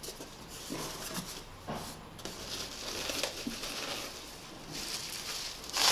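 Cardboard box flaps and plastic bubble-wrap packaging rustling and crinkling as hands unpack wrapped plates, with a few light knocks.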